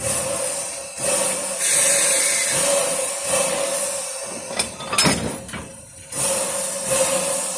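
Running noise of the Puffing Billy steam train, a steady rumble and hiss with a few sharp clicks about five seconds in.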